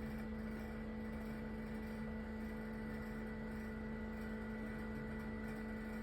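Steady low electrical hum with a few fixed tones, unchanging throughout; no chick peeps stand out.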